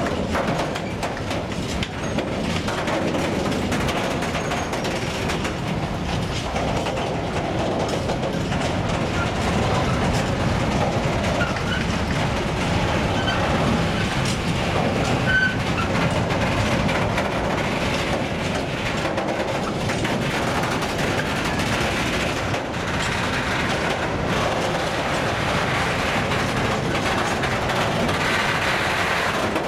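Empty hopper wagons of a gravel train rolling past close by: a steady rumble of steel wheels with clickety-clack over the rail joints. A couple of short, high squeaks from the wheels come around the middle.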